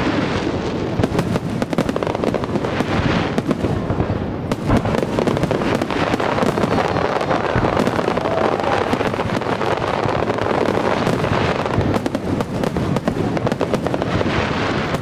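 Aerial fireworks shells bursting in a dense, unbroken barrage of bangs and crackling.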